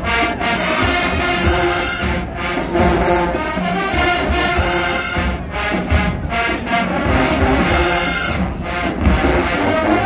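HBCU marching band playing loud, brass-heavy music with drum hits underneath, broken by a few brief pauses between phrases.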